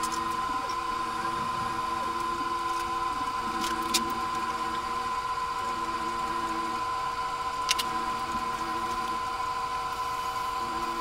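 A steady hum with a constant high tone, lower tones that come and go every second or so, and two light clicks, about four and eight seconds in.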